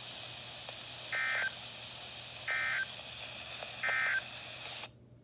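NOAA Weather Radio SAME end-of-message code: three short warbling digital data bursts, each about a third of a second long and about a second and a half apart, over steady radio hiss. The signal marks the end of the broadcast alert message. Near the end there are two faint clicks and the audio briefly drops out.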